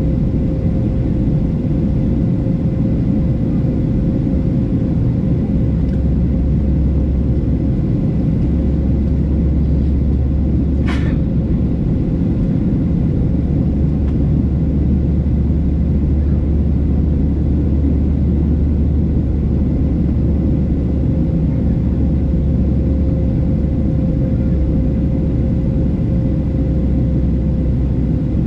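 Boeing 737-700 cabin noise from a window seat during the climb: steady low rumble of the CFM56-7B turbofans with a constant hum. A single brief click about eleven seconds in.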